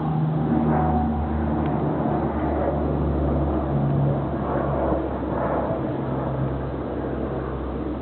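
Military aircraft flying overhead: a steady low engine drone that swells slightly about halfway through and eases a little near the end.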